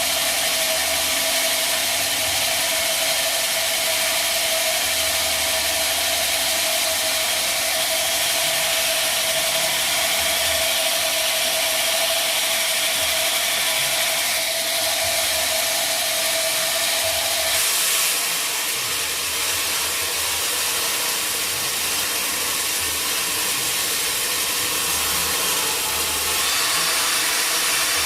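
Sawmill saw cutting mahogany: a steady, loud, noisy sound, with a held hum in it that stops about two-thirds of the way through.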